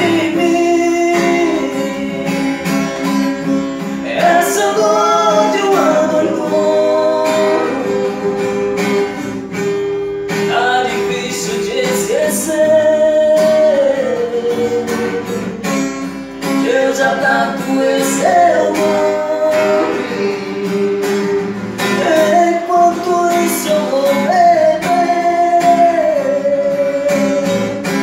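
Live singing with an acoustic guitar played alongside, the voice holding long notes over the strings.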